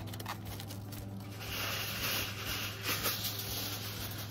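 Aluminum foil crinkling and rustling as a fish is wrapped in it, louder from about a second and a half in. A steady low hum runs underneath.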